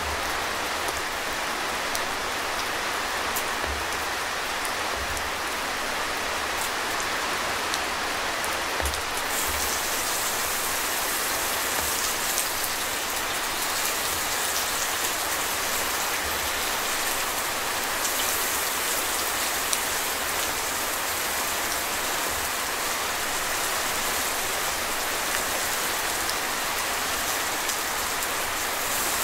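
Steady rain pattering on a tent shelter's fabric, heard from inside, with scattered faint drip ticks and soft thuds. A brighter hiss joins about ten seconds in.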